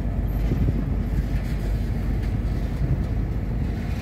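Container flatcars of a freight train rolling slowly past close by, a steady low rumble of steel wheels on the rails.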